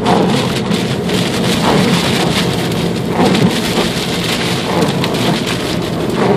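Heavy rain beating on a car's windshield and roof, heard from inside the cabin as a dense, steady hiss.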